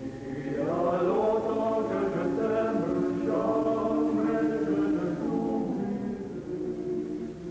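Soundtrack music: a choir singing held notes in several voices.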